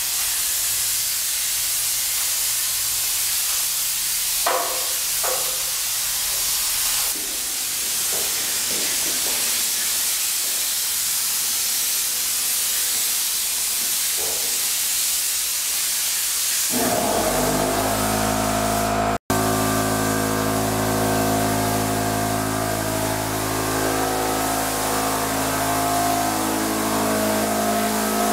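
Hose-fed spray gun hissing steadily as it mists liquid disinfectant. About two-thirds of the way in, a steady machine hum with several fixed tones joins the hiss, and there is a brief dropout shortly after.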